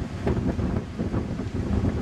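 Wind buffeting the microphone, a low rumble, with a few faint clicks.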